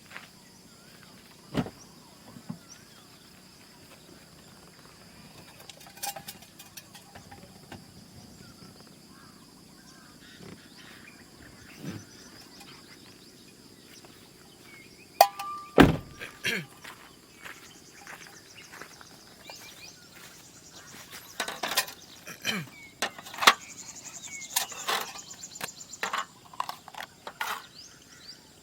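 Steady high-pitched insect drone, with scattered knocks and clatters from objects being handled. The knocks come thicker in the last third.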